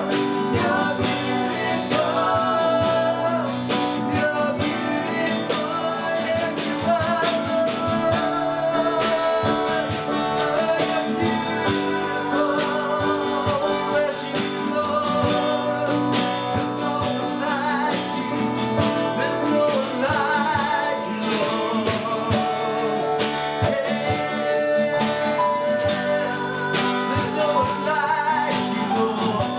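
Worship song with acoustic guitar and a singing voice, played at a steady rhythm.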